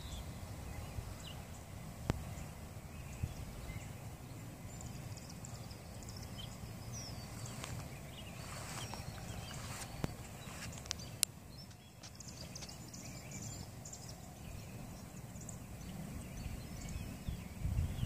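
Outdoor evening ambience: a steady low rumble with faint, scattered bird chirps high above it and a few small clicks.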